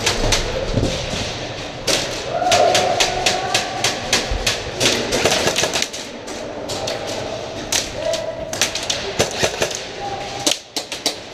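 Airsoft guns firing in several bursts of rapid snapping shots, with pauses between them.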